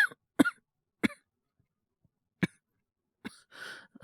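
A young man's acted coughing: about five short, separate coughs spread irregularly over the seconds, performed as the first signs of a cold coming on.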